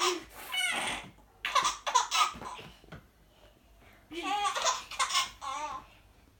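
A baby laughing in three high-pitched bursts, with a quieter pause in the middle.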